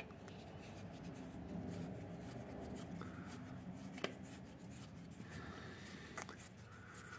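Faint scraping of a screwdriver working the JIS crosshead screws that hold a Yamaha SR500's ignition coil, with a couple of light metal clicks about four and six seconds in.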